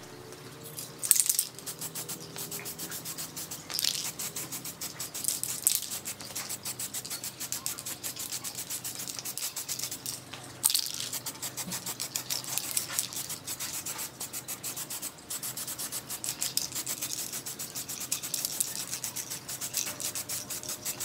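Hand sanding: quick, even back-and-forth rubbing strokes of abrasive on a surface, with a few harder, louder scrapes now and then.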